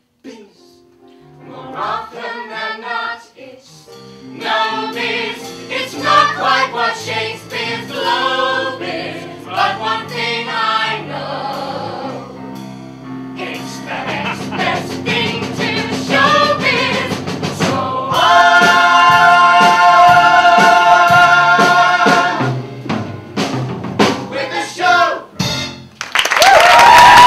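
Musical theatre cast singing together in harmony with accompaniment, building to a long held chord and ending on a loud final note.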